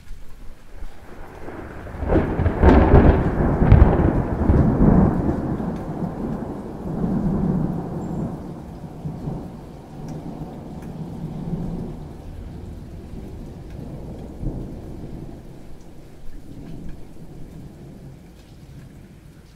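Thunder: a peal breaks about two seconds in with two sharp cracks, then rolls on as a low rumble that slowly fades away, over steady rain.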